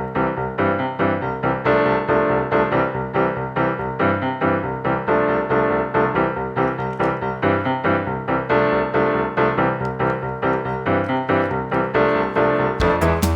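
Background music: a bouncy piano or electric-piano tune with a steady beat of quick notes, with percussion coming in near the end.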